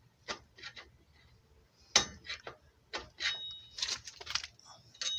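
Screwdriver turning the star-wheel adjuster of a Toyota Yaris rear drum brake, backing the shoes off because they are set too tight to let the drum on: a string of irregular sharp metallic clicks, some with a short ring.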